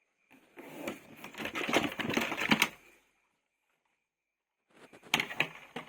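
Rapid clicking and clattering of small hard plastic toy pieces being handled, in two spells: a longer one of about two and a half seconds, then after a pause of nearly two seconds a shorter one near the end.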